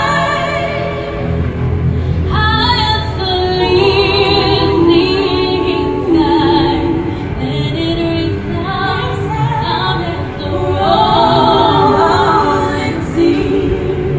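Several women singing together in close harmony, with vibrato on held notes, over a low backing track, amplified live in a bar.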